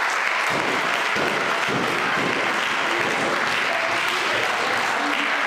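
Live wrestling crowd applauding steadily, with a few voices mixed in.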